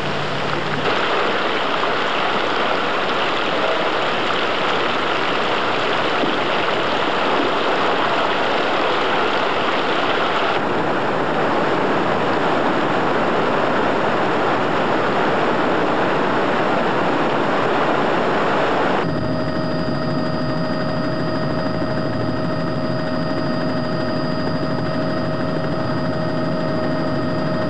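Rushing floodwater, a dense steady noise of moving water that shifts in tone about ten seconds in. About two-thirds through it gives way to the steady drone of an aircraft engine with a high whine, heard from aboard the aircraft.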